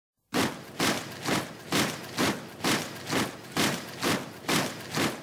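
Rock backing track starting suddenly about a third of a second in with its intro: a noisy, sharp hit repeated evenly a little over twice a second.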